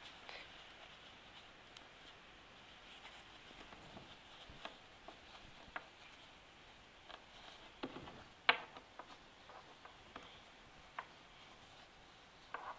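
Faint rustling and scattered soft ticks of cotton fabric being handled on a tabletop as a strap is worked into an apron seam, with one sharper click a little past the middle.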